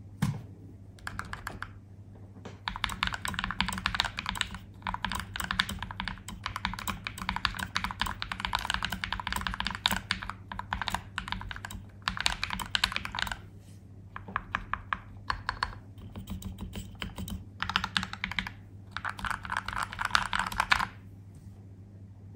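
Typing on an Akko 5087B Plus mechanical keyboard: quick runs of keystrokes clacking, in several bursts with short pauses between them.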